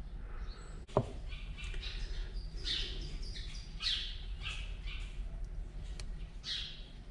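A bird gives a run of short, harsh chirping calls, about a dozen over some five seconds. A single sharp click comes about a second in.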